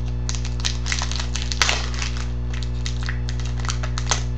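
Trading cards being flipped through by hand: quick, scattered clicks and flicks of card stock, over a steady electrical hum.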